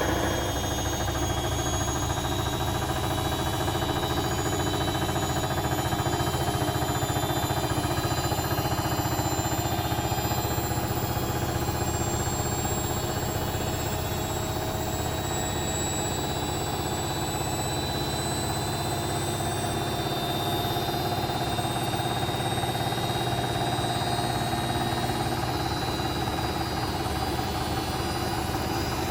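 Bosch WAE24366 washing machine spinning, a rapid steady rattle from the drum under a high motor whine that drifts slowly in pitch. The uploader puts the noise down to a broken drum spider rather than bad bearings.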